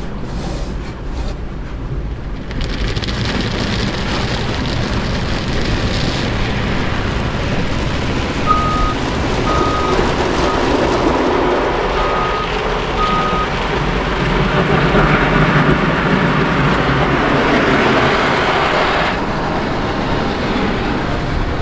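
Automatic car wash heard from inside the car: a steady rush of spray and wash-machine noise that swells about two seconds in and eases near the end. In the middle come about four short, evenly pitched beeps from the car's parking sensors, set off by the wash equipment close in front of the car.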